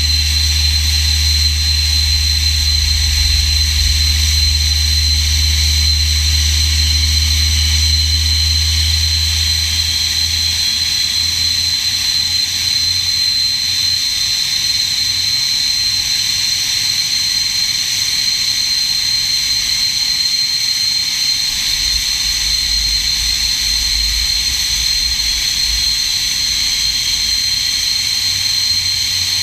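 SEPECAT Jaguar's Rolls-Royce Turbomeca Adour turbofan running steadily on the ground: a loud, even high-pitched whine over a low rumble. The deepest part of the rumble drops away about ten seconds in.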